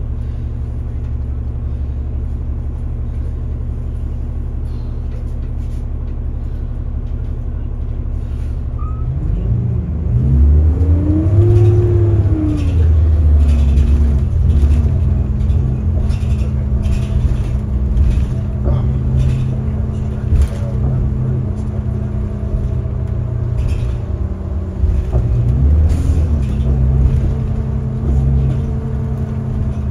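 Cummins ISL diesel of a 2005 New Flyer D40LF city bus, heard from inside the passenger cabin: idling steadily, then about nine seconds in it revs up as the bus pulls away, its pitch dipping as the Allison B400R automatic shifts up, before settling into a steady run; it rises and falls again briefly near the end, with light rattles from the cabin.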